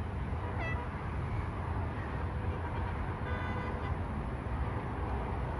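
Steady rumble of road traffic, with a vehicle horn honking once, for under a second, about three seconds in.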